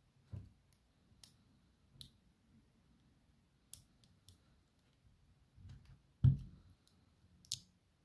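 Scattered small metallic clicks and taps from a disassembled padlock body being worked with a shim and turned to free the shackle, with a duller knock about six seconds in.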